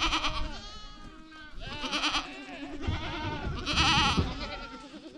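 A herd of nanny goats bleating, many overlapping wavering calls at once, loudest about four seconds in.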